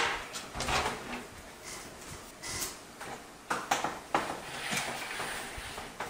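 Irregular clicks, knocks and light rattles of hands handling a PC case and loose parts, with a sharp click at the very start.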